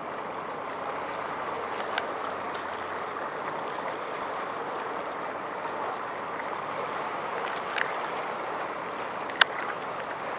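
Steady rush and lapping of seawater along the hull of a boat out on open water. Three short sharp sounds break through: about two seconds in, near eight seconds, and a louder snap near the end.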